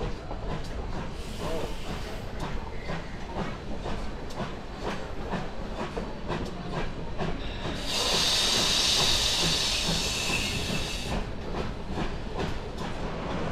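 Steam-hauled narrow-gauge train rolling slowly, wheels clicking steadily over the rail joints with a low rumble. About eight seconds in, a loud hiss of steam from the locomotive lasts about three seconds and then cuts off.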